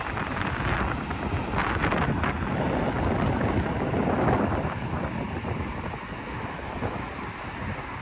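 Gusty wind buffeting the microphone, over a steady rush of traffic from the highway bridge alongside.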